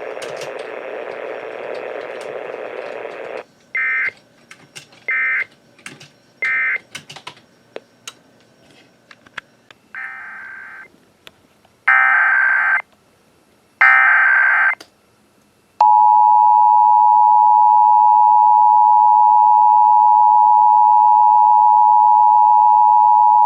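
Emergency Alert System tones received over radio. About three seconds of radio hiss, then three short digital data bursts (the end-of-message code), then three longer data bursts of a new SAME header. About two-thirds in, the loud, steady two-tone EAS attention signal starts and holds.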